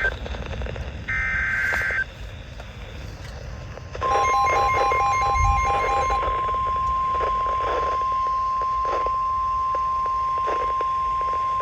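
NOAA Weather Radio alert broadcast heard over a radio receiver. A short screeching SAME data burst comes about a second in. About four seconds in, the steady single-pitch 1050 Hz warning alarm tone starts, with rapid beeping over its first two seconds. The tone announces a warning message, here a severe thunderstorm warning.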